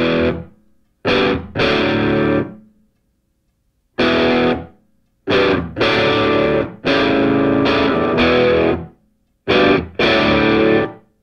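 Music: distorted electric guitar chords, struck in short groups with silent gaps between them.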